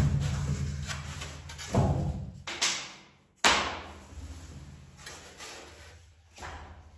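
Cut flooring planks being lifted and set down on foam boards: a series of knocks and clatters, the sharpest about three and a half seconds in and a softer one near the end.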